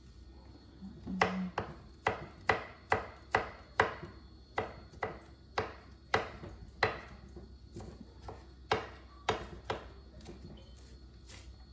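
Kitchen knife chopping fresh ginger on a cutting board: a run of sharp, fairly even knocks, about two to three a second, starting about a second in.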